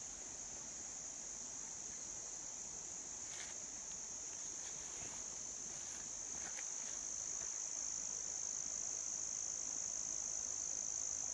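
Steady, high-pitched chorus of insects chirring, growing a little louder toward the end, with a few faint ticks.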